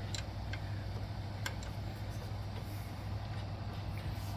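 A few faint, light clicks of hands handling metal parts while a drive belt and idler pulley are fitted, over a steady low hum.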